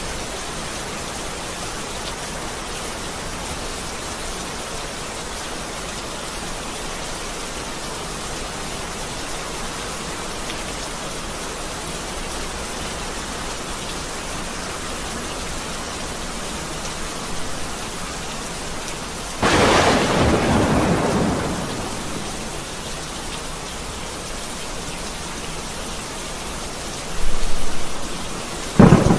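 Steady rain falling, with a sudden loud thunderclap about two thirds of the way through that rumbles away over a couple of seconds, and another crack of thunder near the end.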